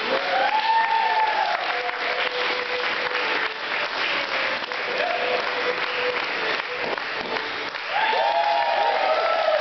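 Audience applauding, with a few rising-and-falling whoops of cheering: about a second in, again around five seconds in, and louder near the end.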